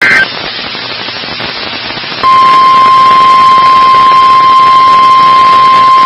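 The last instant of a SAME digital header burst (a brief two-pitch data squeal), then radio hiss for about two seconds, then the NOAA Weather Radio 1050 Hz warning alarm tone comes on loud and steady, the alert signal sent during the station's weekly test.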